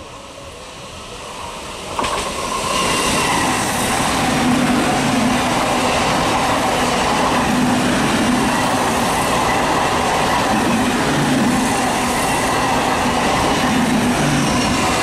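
ICF-built electric multiple unit (EMU) local train approaching and passing close by at speed. The rumble rises, then jumps suddenly about two seconds in as the front reaches, followed by a steady loud rush of steel wheels on rails with a repeating wheel clatter.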